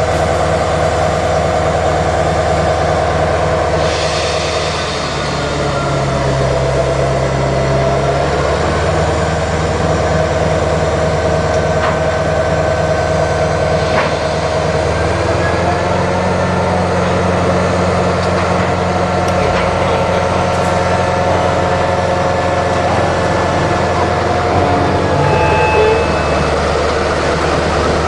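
Norfolk Southern GP38-2 diesel-electric locomotive's EMD 16-645 two-stroke V16 running at low throttle while shunting. Its engine note shifts about five seconds in and again about fifteen seconds in.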